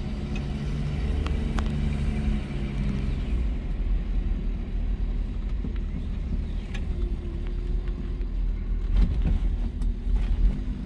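1967 Ford Mustang's inline-six engine running as the car is driven, with a steady low rumble throughout; an even engine tone is clear for the first three seconds or so and then fades.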